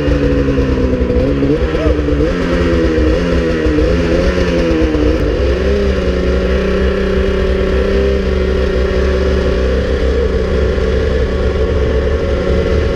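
Snowmobile engine running just after being pull-started, its pitch rising and falling with the throttle for about six seconds, then holding steady.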